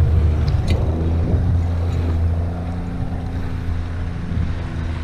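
Boat's motor running steadily as the skiff moves under way, a constant low drone with a faint steady whine above it.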